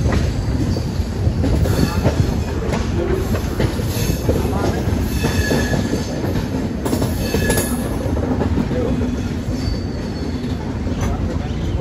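Karnavati Express passenger train rolling out of the station. Its wheels clatter over rail joints and points, with a couple of brief wheel squeals.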